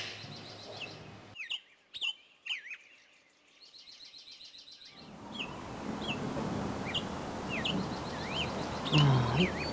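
Small songbirds chirping in short, quick up-and-down whistled calls, about one a second. A steady hiss of outdoor background noise comes in about halfway.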